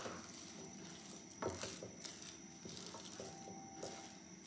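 Wooden spatula stirring and pressing thick mung bean paste in a nonstick frying pan: faint, soft scraping and squishing, with one slightly louder stroke about a second and a half in. The paste is being stir-cooked to dry it out for a bun filling.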